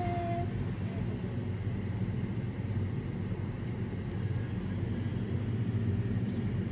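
Steady low outdoor rumble of background noise.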